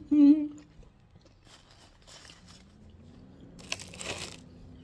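Crackers crunching as they are bitten and chewed, in a few crisp bursts, the loudest near the end. It opens with a short vocal sound.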